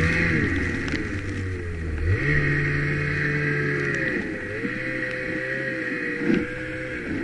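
Snowmobile engine running under the rider while ploughing through deep snow, its pitch dropping and climbing again several times as the throttle is eased and reopened.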